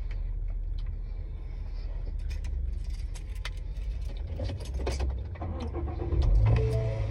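Steady low rumble of a vehicle idling, heard from inside the cab, with scattered light clicks and rattles through the middle few seconds.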